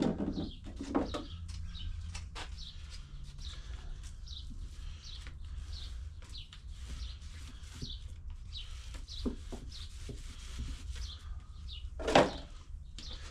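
Small birds chirping repeatedly in short, falling notes over a steady low rumble, with a single loud knock near the end.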